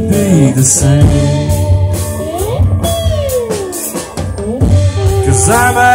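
Live band playing amplified through PA speakers: electric guitars, bass and drum kit. Near the middle a guitar note bends up, then slides down.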